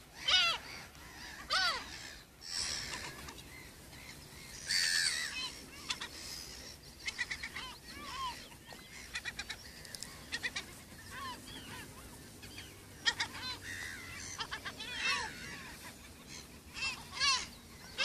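A colony of black-headed gulls calling: many short, harsh, arched calls overlapping in clusters, with quicker runs of calls around the middle and near the end.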